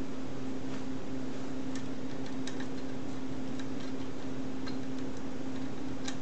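Faint, irregular clicks of stiff electrical wires and a plastic twist-on wire nut being handled and twisted together, over a steady low hum.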